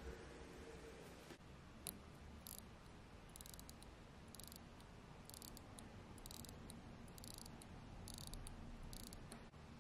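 Vintage Rolex calibre 10.5 Hunter movement being hand-wound at the crown: faint, short bursts of ratchet clicking from the click and ratchet wheel, about ten strokes a little over a second apart, as the mainspring is wound.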